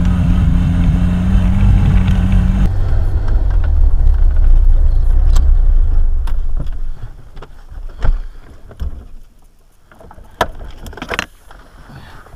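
UAZ off-roader's engine running as it drives a rough forest track, with a steady drone and a low rumble; the drone drops out about two and a half seconds in and the engine sound dies away a little past the middle. After that, a few scattered sharp clicks and knocks.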